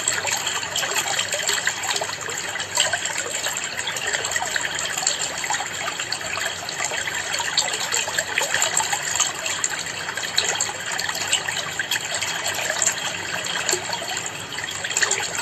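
Water trickling and splashing steadily in a planted aquarium, the splash of the filter's return water falling onto the tank's surface.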